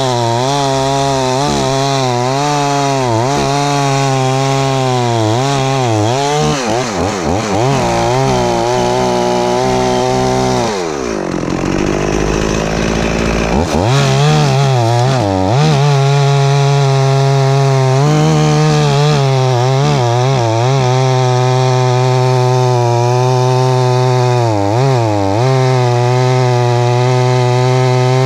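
Stihl 044 two-stroke chainsaw running at high revs, cutting through a large fallen tree trunk, its pitch wavering slightly as it works. About ten seconds in the revs fall away steeply and climb back up over some three seconds, then it runs steadily at high revs again.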